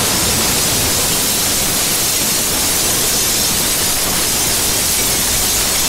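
Explosion sound effect for a mushroom-cloud blast: a loud, even rushing noise, heavy in hiss, holding steady without fading.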